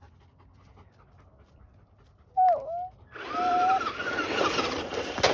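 Electric RC truck accelerating on loose dirt, starting a little past halfway through: a motor whine over the hiss and patter of spinning tyres throwing grit. Just before it comes one short, loud yelp.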